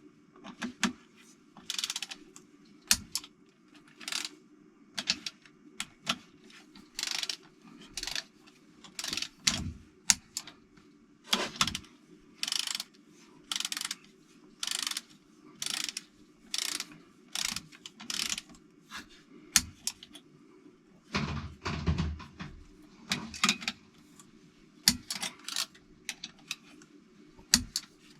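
Hand ratchet wrench clicking in short strokes, about one a second, as bolts on a Toyota 4A-GE engine are tightened in sequence. A few heavier knocks come a little over two-thirds of the way through.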